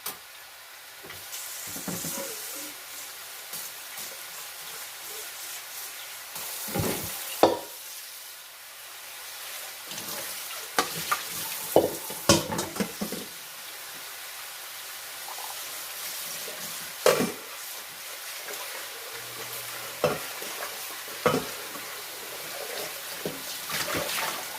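Seasoned chicken pieces sizzling as they sear skin side down in a hot pan: a steady frying hiss with occasional sharp knocks against the pan.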